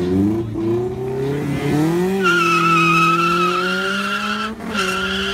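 Car engine revving up in rising glides, then held at high revs while the tyres squeal in a long, steady wheelspin, with a brief break about four and a half seconds in.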